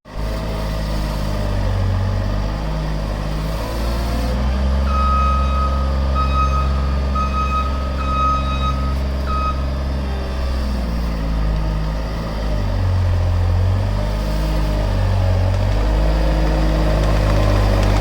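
ASV RT-65 tracked skid steer's diesel engine running under load, its pitch shifting up and down several times. A reversing alarm beeps in quick pulses for about five seconds near the middle.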